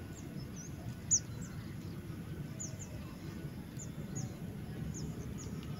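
A bird calling in short, high chirps that fall in pitch, repeated every half second to a second, the strongest about a second in, over a steady low background rumble.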